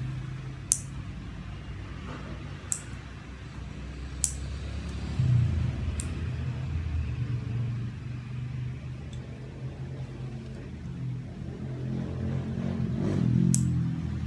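Nail clipper snipping fingernails: about five sharp, short clicks at irregular intervals, with a few fainter ones between. A steady low rumble runs underneath.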